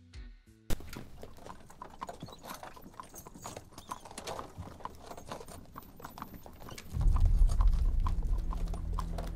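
Horses' hooves clip-clopping on a hard road, an irregular patter of many hoofbeats. About seven seconds in, a loud low rumble comes in underneath.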